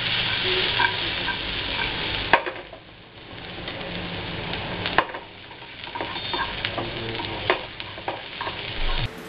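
Chopped onion and green chilies sizzling in hot oil in a pan while being stirred with a spoon, with a few sharp knocks of the spoon against the pan. The sizzle is heaviest for the first couple of seconds, then quieter.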